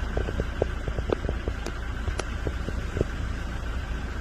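A car driving, with a steady low rumble of engine and road, and scattered light ticks and clicks, several a second.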